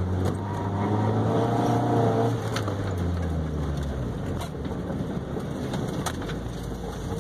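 Car engine heard from inside the cabin, running steadily under throttle, then the throttle lifts a little over two seconds in and the engine note fades as the car slows. Tyre and road noise remains, with a few sharp clicks.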